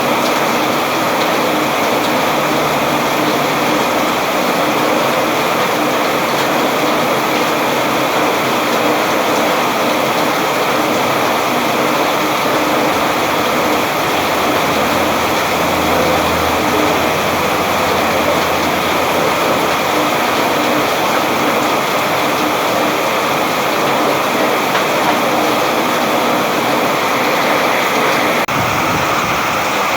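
Steady rain falling, a dense, even hiss of drops that does not let up.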